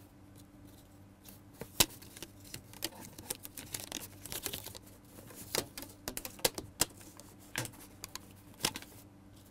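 Hands handling a paper-wrapped cardboard box and stretching a rubber band around it: scattered taps, clicks and paper rustles, the sharpest click about two seconds in.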